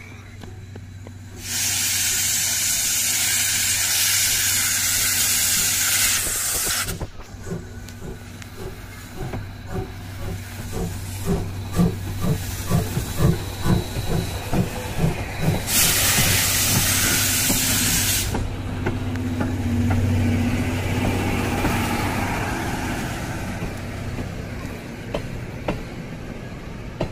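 C58 steam locomotive pulling away: two long, loud blasts of steam hissing from around its cylinders, with its exhaust chuffing in an even beat of about two a second between them. The coaches then roll past.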